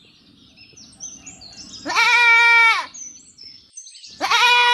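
Goat bleating: two long, steady-pitched bleats, one about two seconds in and one starting near the end.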